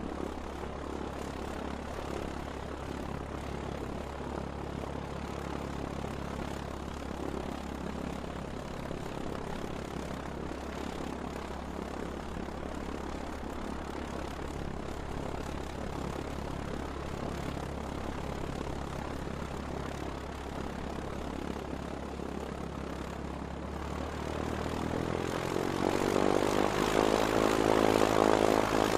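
Single-propeller Cessna's piston engine and propeller idling with a steady low note. About 24 seconds in, the engine speeds up and grows louder, its note climbing and filling out.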